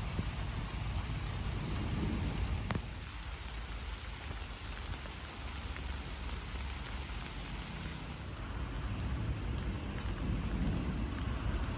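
Steady rain falling, with a low rumble underneath and a single sharp tap about two and a half seconds in.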